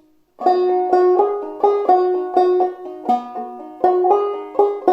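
Five-string banjo played clawhammer style in an open C tuning (eCGCD), a jig melody of plucked notes in steady rhythm, each note ringing on. The playing starts about half a second in.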